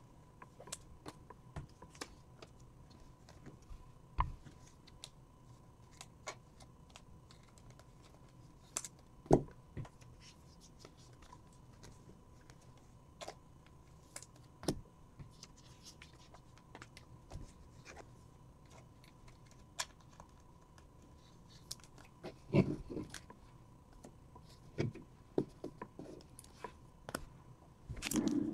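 Sparse, faint clicks and light rustles of trading cards being handled, with a few louder shuffles about a third of the way in and again about three-quarters through. A faint steady whine sounds underneath.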